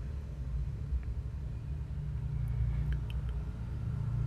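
Electric hair clipper with a guard running with a steady low buzz as it cuts short hair, with a few faint clicks about three seconds in.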